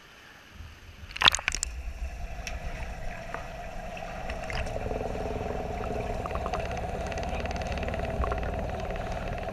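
Water splashing about a second in, then the muffled sound of a swimming pool heard underwater: a steady hum and low rumble with scattered faint clicks and bubbles.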